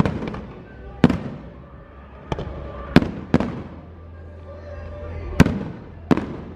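Aerial fireworks shells bursting in a display: about seven sharp bangs at uneven intervals, each trailing off in a smear of reverberation, two of them close together near the middle.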